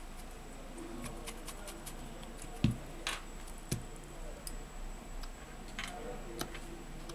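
Light clicks and ticks of a precision screwdriver working the small screws on an opened Samsung Galaxy S10+'s frame, with two dull knocks a little under three and four seconds in.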